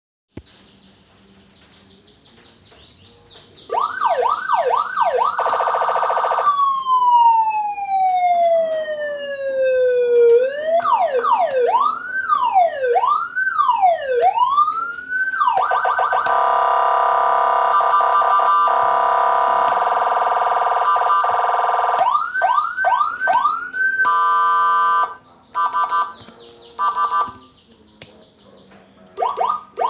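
Electronic 12-tone double-tone siren module cycling through siren patterns: quick rising whoops, a long falling tone, slower up-and-down wails, a steady fast warble, then choppy on-off pulses near the end.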